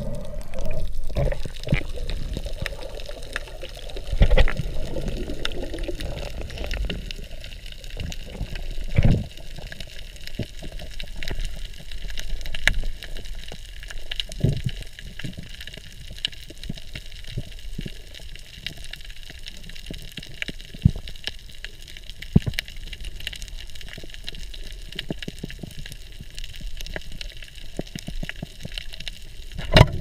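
Underwater reef sound through a camera housing: a muffled, steady water rush with many scattered clicks and crackles, a few dull thumps, and one sharp knock near the end.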